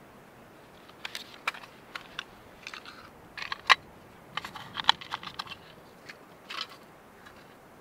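Small metal tin being handled: a scatter of light clicks and taps as its lid and contents are worked and it is set down, the two sharpest near the middle.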